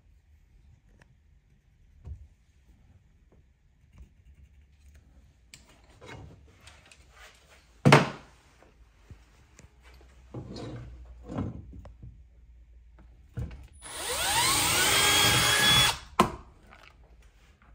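Scattered handling knocks with one sharp loud knock about halfway through; then a Milwaukee cordless drill spins up and bores into the wall for about two seconds, its whine rising as it gets up to speed, before stopping abruptly.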